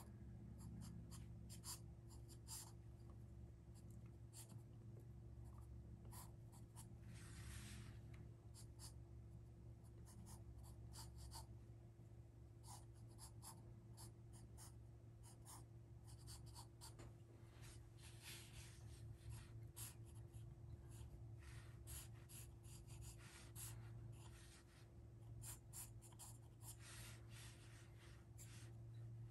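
Wooden pencil scratching on drawing paper while sketching: faint quick strokes, with a few longer drawn-out strokes.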